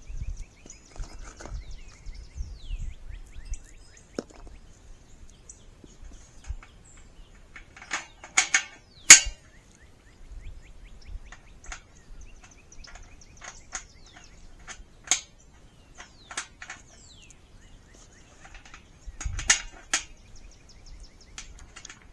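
Steel raised-bed panels clanking and rattling as they are fitted and bolted together, with a cluster of sharp metal knocks about eight to nine seconds in and another around nineteen to twenty seconds. Birds chirp faintly in the background.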